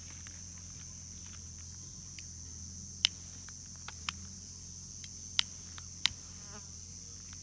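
A steady, high-pitched insect drone runs throughout. It is broken by four sharp snaps of wood, spread over the second half.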